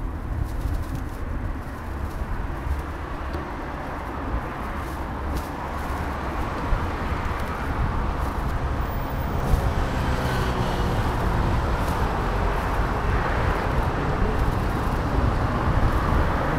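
Street traffic with cars passing, heard while riding a bicycle, over a steady low rumble. It grows a little louder after the middle.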